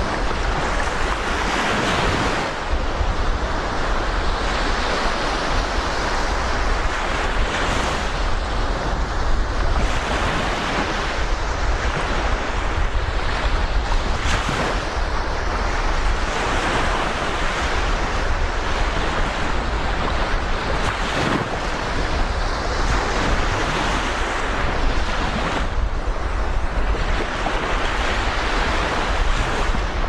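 Black Sea surf washing onto the beach, swelling and easing every few seconds, with wind buffeting the microphone as a steady low rumble.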